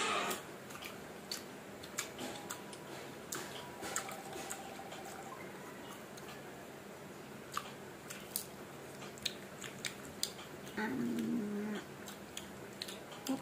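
Close-up chewing and biting of crisp green mango slices: scattered crunchy clicks. About eleven seconds in, a short pitched voice-like sound is heard.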